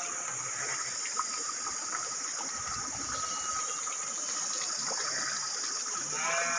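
Shallow stream trickling over stones under a steady high-pitched hiss, with a sheep bleating briefly near the end.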